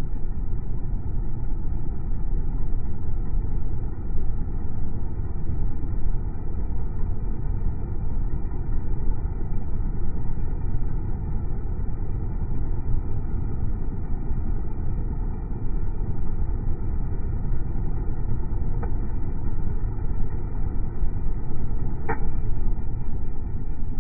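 Comfort Zone electric heater's fan running steadily, a low, even rush of air blown out through the grille close by, with one short click about two seconds before the end.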